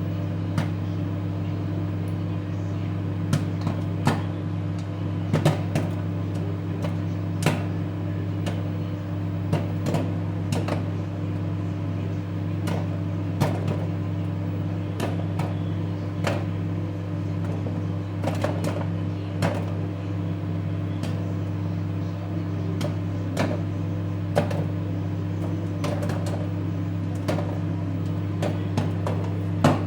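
Microwave oven running with a steady electrical hum while popcorn kernels pop inside it in irregular sharp cracks, sometimes several a second.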